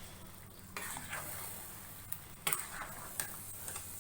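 A spoon stirring prawn masala with freshly added tomato purée in a kadai, scraping the pan and knocking against it a few times, over a light sizzle.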